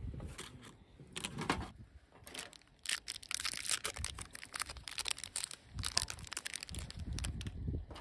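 Wrapper crinkling and rustling as it is handled and opened, in a dense run of small crackles from about three seconds in until shortly before the end.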